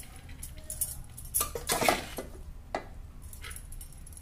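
Metal spoon clinking and scraping against a metal pressure cooker as cooked rice is spooned into it. A handful of separate knocks, the busiest cluster about halfway through.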